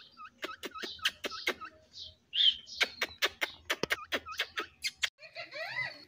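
Rose-ringed parakeet making a rapid string of clicks and short chirps, with one louder harsh squawk about two and a half seconds in and a warbling chatter near the end.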